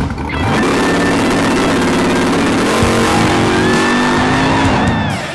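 Second-generation Chevrolet Camaro drag car launching at full throttle, its engine climbing in pitch. Its pitch drops at a gear change almost three seconds in, then climbs again, and falls away near the end as the car moves off down the strip.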